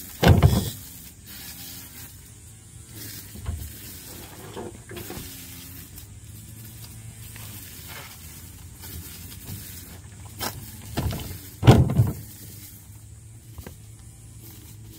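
Hollow plastic knocks and thumps of wheelie-bin lids and plastic toy-car body parts being handled and dropped: a loud thump just after the start, softer knocks in the middle, and another loud thump just before twelve seconds.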